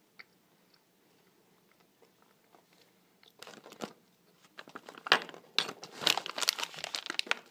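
A Nesquik bag crinkling and rustling as a hand grabs it right by the microphone, starting about three seconds in and growing louder, with a few faint clicks before that.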